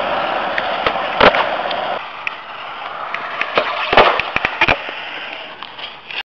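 A skateboard clacking on concrete: one loud slap about a second in, then a quick run of sharp clacks around four seconds in as the tail pops, the board flips and the wheels land during a tre flip (360 flip). A steady hiss runs underneath.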